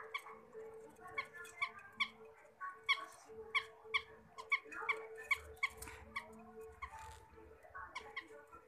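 Budgerigar chirping: short, sharp, high calls repeated about two or three a second, over a faint steady hum.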